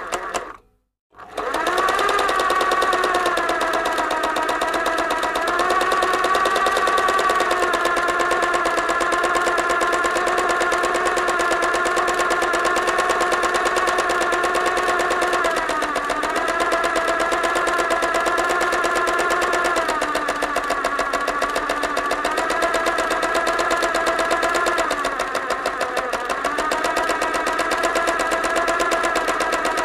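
Sewing machine running fast, stitching in a rapid, even rhythm over a steady motor hum. It stops briefly just after the start and starts again about a second in. Its hum dips slightly in pitch three times as the speed changes.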